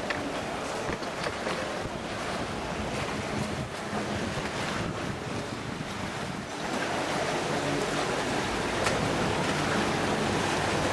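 Steady rushing of wind on the microphone and of canal water around a gondola, getting a little louder about two-thirds of the way through.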